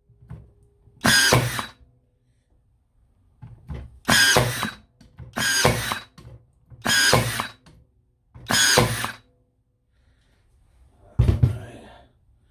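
Ryobi R18N16G 18V cordless 16-gauge nail gun firing one-inch nails into thin backing board on its lowest power setting. There are five shots, each a short burst, spaced one and a half to three seconds apart, then a softer sound near the end.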